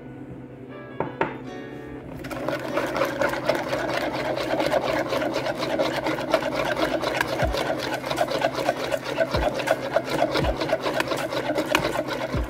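Metal balloon whisk beating a liquid egg, milk and coffee custard mixture in a mixing bowl. The wires scrape and clink against the bowl in rapid, even strokes, starting about two seconds in.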